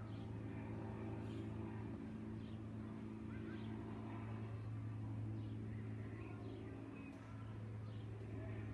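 Propeller aircraft engine droning steadily, dipping slightly near the end, with birds chirping now and then.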